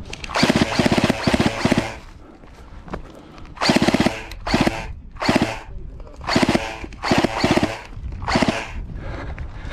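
G&G F2000 airsoft electric gun firing full-auto: its gearbox cycles in rapid, evenly spaced clicks. A burst of about a second and a half comes first, then six short bursts.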